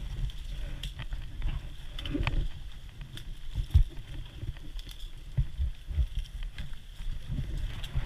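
Rustling and irregular low thumps of movement close to a body-worn microphone, with a few faint sharp clicks.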